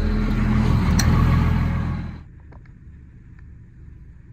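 Old Cummins diesel in a Kawasaki wheel loader idling loud and steady while it warms up after a cold start, with a short knock about a second in. About two seconds in it cuts off abruptly to a quiet, steady low hum inside a car.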